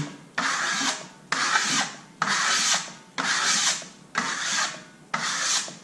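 A steel trowel rubbed in strokes over a dried liquid-metal coating, burnishing it to a shine: six even scraping strokes, about one a second.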